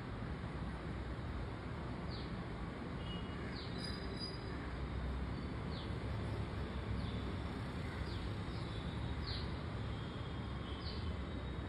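Steady background noise, with short, high, falling chirps every second or so.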